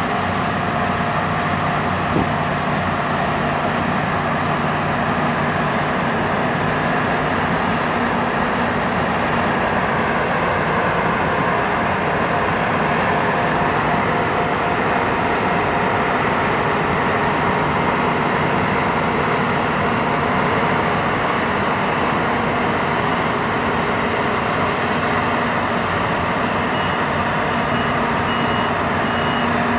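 Claas Tucano 320 combine harvester running steadily while harvesting rapeseed: engine, header and threshing gear make a continuous mechanical noise with faint steady whining tones over it. A single short knock about two seconds in.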